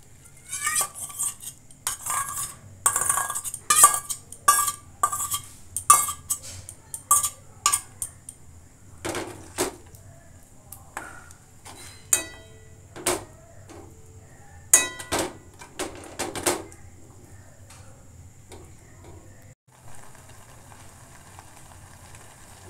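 Metal spoon scraping and clinking against stainless-steel cookware while dates cooked in milk are stirred together with thickened rice-milk (kheer). The scrapes come quick and repeated for about the first eight seconds, then as a few sparser knocks, one of which rings out clearly, and they stop for the last several seconds.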